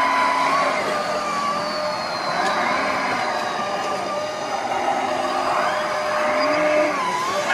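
Electric drive motors and gearboxes of radio-controlled model machines whining, several tones at once, each rising and falling in pitch over a second or two as the models speed up and slow down.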